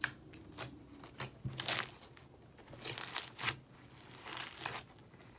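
Foam-bead slime (floam) being squeezed and kneaded by hand, the beads crunching and crackling in irregular bursts.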